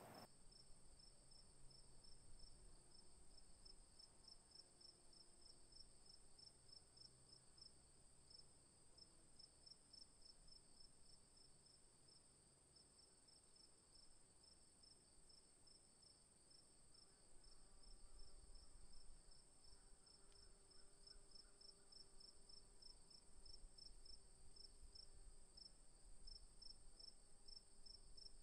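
Very faint insect chirping, a rapid, even pulse of high chirps over a steady high tone.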